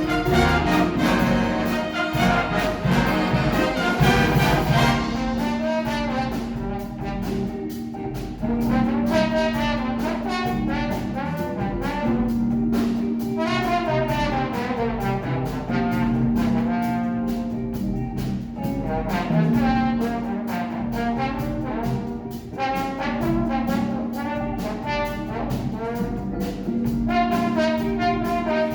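Instrumental music led by brass, with a low held note recurring every few seconds beneath a moving melody.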